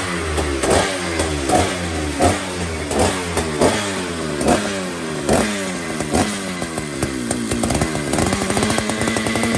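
Jonsered Super 920 two-stroke chainsaw running with its bar and chain off, the revs surging up and dropping back roughly once a second, then settling into a steady idle near the end.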